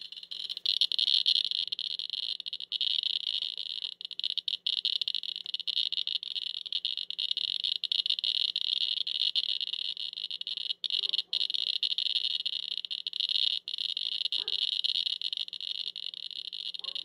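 Radiation Alert Inspector EX radiation meter's audio counter chirping so rapidly that the individual clicks merge into a steady high-pitched buzz, with an external probe held against the throat. The fast count comes from radioactive iodine taken up by the thyroid.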